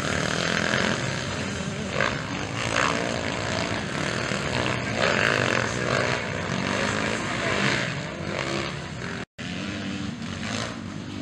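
Several motocross dirt bikes racing, their engines revving up and down over one another as riders take the jumps. The sound cuts out for a split second about nine seconds in.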